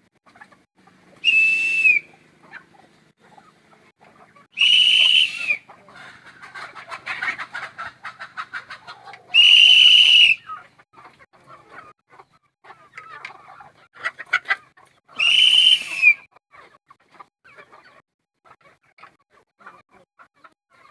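Four loud, high whistles, each about a second long and dropping in pitch at the end, given as a call to bring the chickens in to feed. Between the whistles, chickens cluck as they gather.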